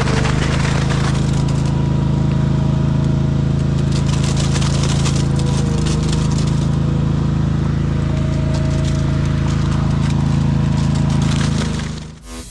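An engine running at a steady speed, with crackling, scraping noise over it; it stops abruptly near the end.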